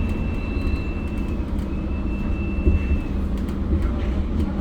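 Inside a Mercedes-Benz OC500LE bus: a steady low engine rumble. Over it runs a steady high-pitched tone that breaks off briefly a little past a second in and stops for good about three seconds in.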